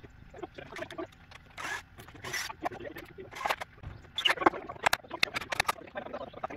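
Scrapes and sharp knocks from hand work on a wooden frame of pallet boards, with a quick run of separate knocks about four seconds in.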